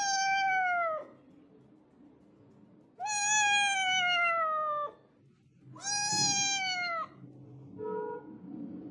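A cat meowing in long, drawn-out calls, each sliding down in pitch. Three loud meows come about a second in, in the middle and around six seconds in, then a short faint one near the end.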